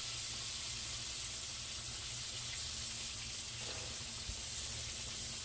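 Flour-dredged chicken pieces frying in hot grease in a cast-iron skillet: a steady, bright sizzle. The grease is a little too hot, so the chicken is browning more than the cook wanted.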